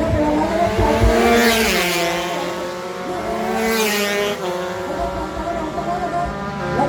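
Racing motorcycles from a two- and four-stroke open class, several engines running at high revs, with two bikes passing close by, one about a second and a half in and another near four seconds.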